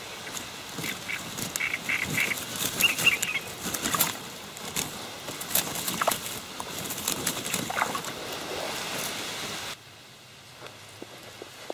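Crucian carp being put into a mesh keepnet at the water's edge: rustling net, small splashes and clicks as it is handled, with a short run of high calls about two seconds in. It drops to a quieter background near the end.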